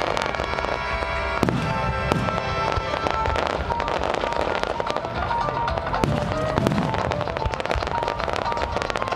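A rapid barrage of aerial fireworks shells bursting and crackling, with several louder bangs among the dense popping, while music plays along with the display.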